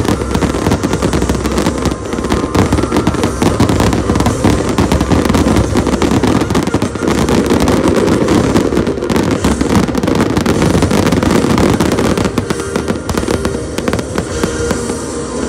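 Aerial fireworks going off in a dense, continuous barrage of cracks and booms over a rolling low rumble, thinning slightly near the end.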